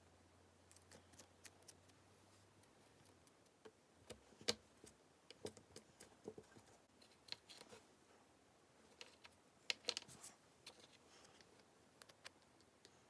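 Faint, scattered clicks and taps of small craft items being handled, with the sharpest click about four and a half seconds in and a quick cluster of clicks near the end.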